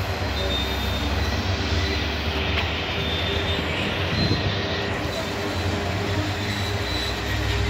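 Long coal train of hopper wagons rolling past, a steady rumble of wheels on rail.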